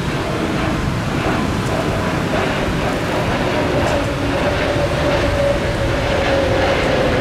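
Airbus A321neo jet airliner climbing out after takeoff: a loud, steady jet-engine rumble with a tone that slowly drops in pitch as the aircraft flies away.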